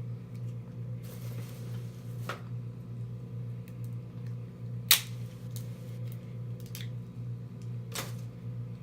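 Crab legs being cracked open and picked apart while eating: a few sharp shell cracks, the loudest about five seconds in, over a steady low hum.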